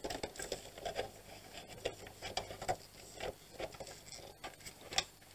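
A control circuit board being worked loose and pulled out of a Growatt SPF5000ES inverter by gloved hands: scattered small clicks and rustling.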